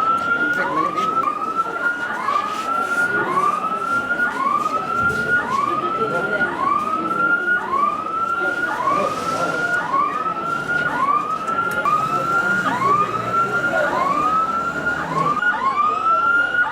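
Emergency vehicle siren sounding a fast, repeating rising whoop, each cycle sweeping up and levelling off about one and a half times a second.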